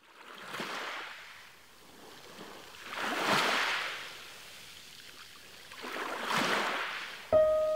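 Ocean surf washing onto a beach: three waves swell and fade, about three seconds apart. A piano starts playing near the end.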